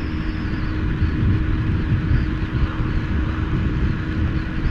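Motorcycle riding noise heard from a microphone inside a helmet: steady wind swirling and buffeting around the helmet over the low rumble of the engine, with a steady hum. The microphone is covered with a latex glove to cut the wind noise.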